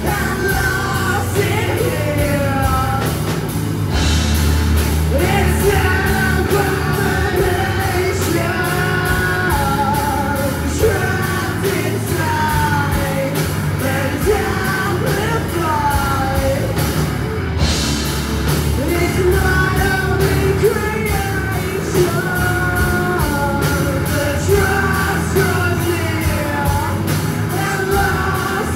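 A rock band playing live: a singer's voice over bass guitar, electric guitar and a drum kit keeping a steady beat.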